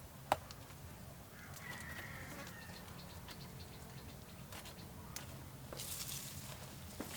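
Faint clucking of chickens over a steady low background hum, with one sharp click just after the start and a brief rustle near the end.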